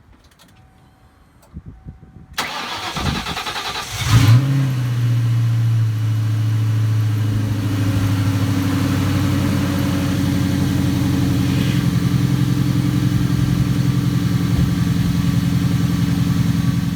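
1996 Ford Mustang GT's 4.6-litre V8 cranking for about two seconds, catching with a brief loud flare and then idling steadily. It now starts after its corroded battery terminal was cleaned.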